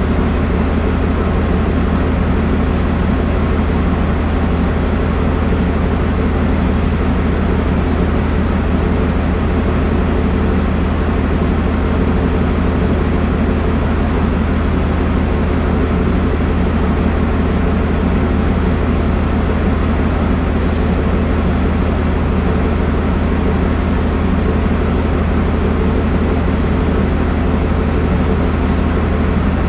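Steady, unchanging drone of a ship's machinery: a loud low hum with a few steady tones above it.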